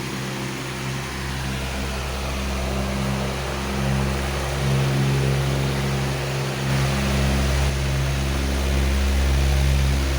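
A powerful electric fan running steadily: an even rush of air over a low motor hum, which grows somewhat louder about four seconds in.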